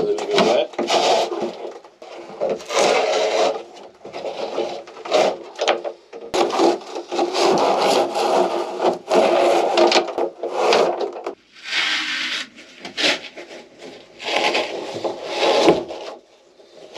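Old carpet being ripped up by hand: repeated rough tearing and rubbing strokes as it pulls away, in irregular bursts with short pauses between them.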